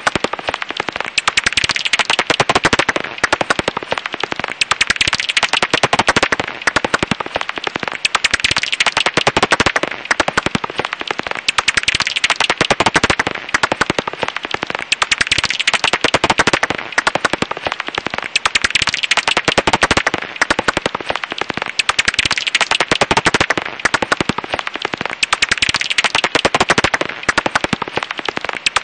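Japanese house bat (Pipistrellus abramus) calls: dense, rapid clicking and crackling in runs, with brief lulls every few seconds.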